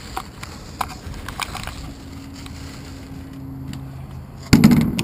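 Small knocks and clicks of bags being stowed in the metal float compartment of a de Havilland Beaver floatplane, over a faint steady hum. Near the end comes a loud metallic clatter as the float's compartment hatch is shut.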